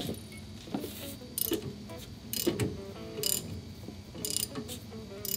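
Ratchet wrench clicking in short runs about once a second as it turns the forcing screw of a ball joint press under heavy load, pressing an upper ball joint out of the steering knuckle.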